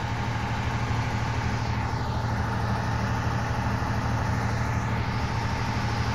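Diesel locomotive engine running steadily, a constant low drone with a faint higher whine.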